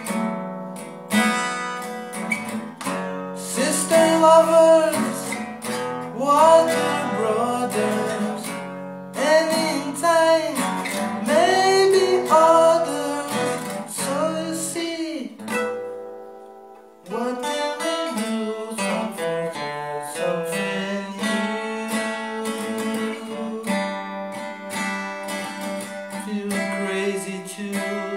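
Acoustic guitar strummed and picked, with a man singing over it through the first half. The music fades out about sixteen seconds in, then the guitar starts again a second later.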